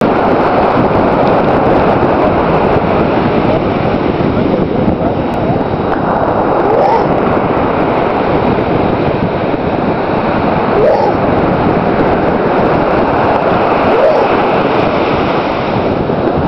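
Steady, loud rush of surf and wind at the beach, with wind buffeting the microphone.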